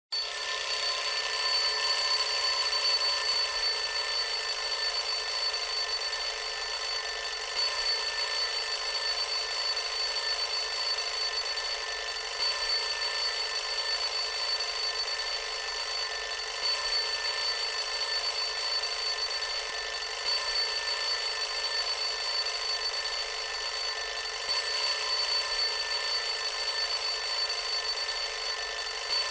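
Classic bell alarm clock ringing loudly and without a break, starting abruptly.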